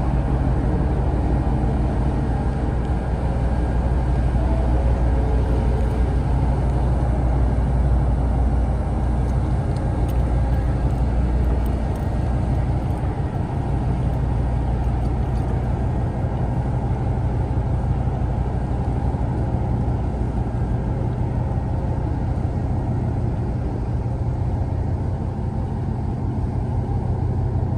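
Low, steady rumble of a car carrier ship's engine and propeller as it leaves the pier, with water churning in its propeller wash.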